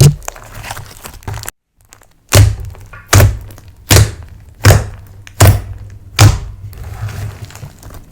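Slime being worked by hand, giving heavy, dull thunks. A short silence comes early, then six evenly paced thunks follow, about one every 0.8 seconds.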